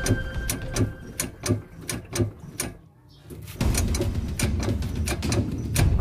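Background music with a steady clicking beat of about three to four strokes a second. It drops out briefly about three seconds in.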